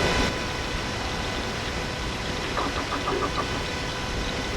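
Steady hiss of a volume-boosted night recording, with a short run of faint, quick taps about two and a half seconds in, which the speaker takes for someone knocking on an iron railing below.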